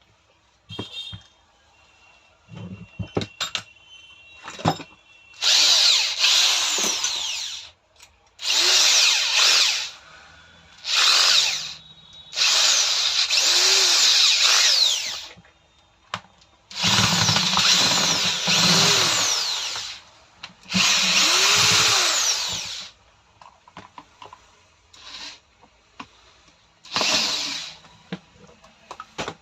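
Electric rotary hammer with a newly fitted armature and carbon brushes test-run: the motor is switched on and off in about eight bursts of one to four seconds each. A few light handling clicks and knocks come before the first run.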